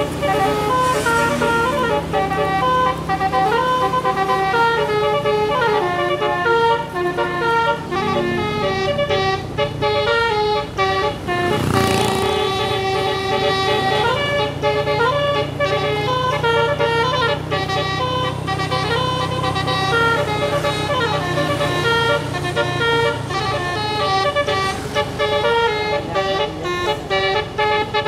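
Indonesian tour bus 'telolet' multi-tone musical air horn (basuri) playing a fast tune of short stepped notes, with a few sliding notes, over a low steady drone. A short burst of noise comes about twelve seconds in.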